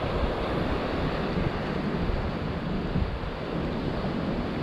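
Steady wash of ocean surf with wind buffeting the microphone, a gusty low rumble beneath the hiss of the water.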